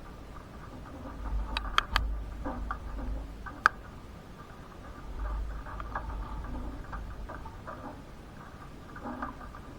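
Thunderstorm rain pattering irregularly, over a low rumble that comes and goes, with a few sharp clicks of drops or hailstones striking something hard, the loudest about four seconds in.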